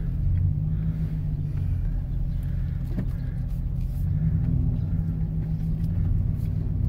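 Low, steady rumble of a 2007 Dodge Durango's engine and tyres heard from inside the cabin as it drives slowly out of a driveway.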